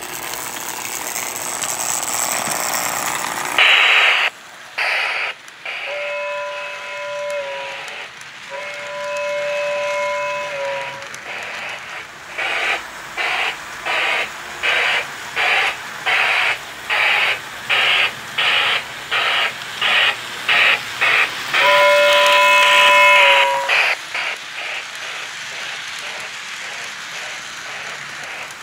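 Lionel 784 O scale model steam locomotive running on its track. It gives two whistle blasts, each a steady multi-tone chord, then a regular chuffing at about one and a half chuffs a second, with a third whistle blast near the end of the chuffing.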